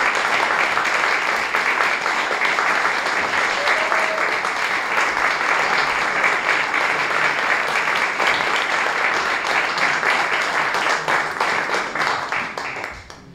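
Audience applauding, a dense steady clatter of many hands that dies away near the end.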